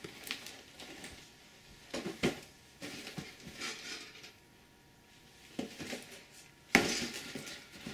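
Cardboard model kit boxes being handled and shifted about, giving scattered knocks and rustles, with a louder knock a little before the end.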